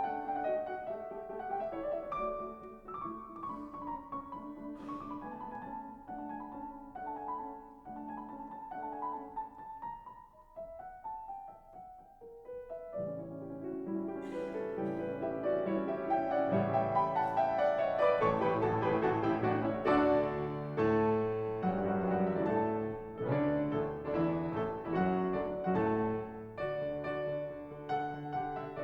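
Background piano music. It is lighter for the first half, then grows fuller and louder from about halfway, with low bass notes joining.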